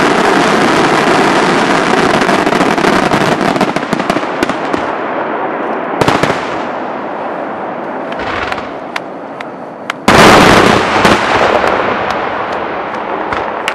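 Aerial fireworks shells bursting: dense crackling that thins out after about four seconds, a sharp bang about six seconds in, then a loud burst about ten seconds in followed by more crackling.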